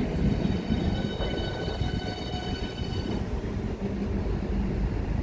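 Electric multiple-unit train at a station platform: a steady low rumble, with a high, even electrical whine of several tones that stops about three seconds in.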